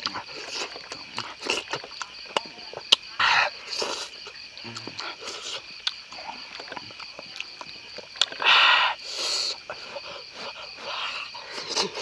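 Close-up eating sounds: wet clicks and smacks of the mouth and lips as fish is eaten by hand. There are two hissing rushes of air, a short one about three seconds in and a longer one about eight seconds in, over a steady high chirring of insects.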